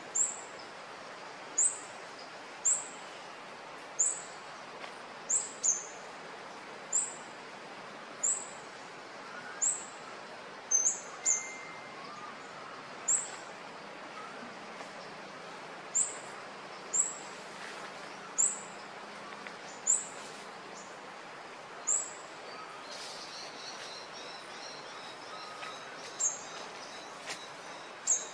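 A bird repeating a short, high, slightly falling chirp about once a second at uneven intervals, over a steady outdoor background hiss. Fainter high warbling from another bird joins near the end.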